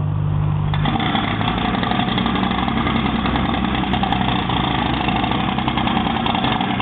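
An engine running steadily. About a second in, the sound changes abruptly and becomes fuller and noisier, then holds steady.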